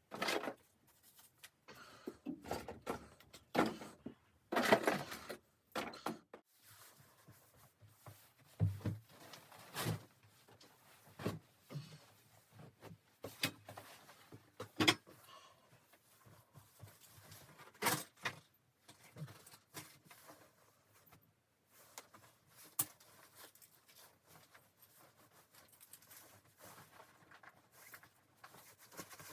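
Irregular knocks, clicks and rustles, as of things being handled in a small room, with the loudest knocks about five seconds in and around fifteen and eighteen seconds.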